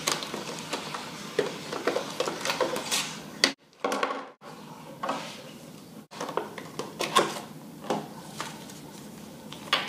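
Clear plastic blister packaging being pried open and handled, with irregular crackles, snaps and clicks as a multimeter and battery are taken out and set down on a desk. The sound cuts out for about a second midway.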